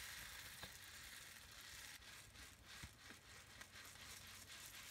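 Near silence: a faint patter and rustle of foam beads pouring out of plastic bags into a stainless steel bowl, with scattered light ticks.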